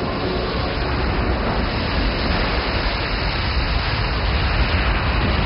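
Steady roar of seawater rushing through a breached seawall into an open-pit mine, with a heavy low rumble underneath.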